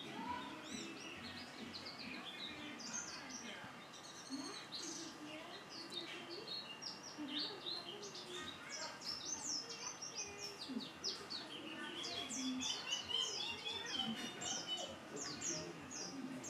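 A pet white-eye (pleci) songbird singing a fast, continuous run of short high chirps and twitters, busier in the second half.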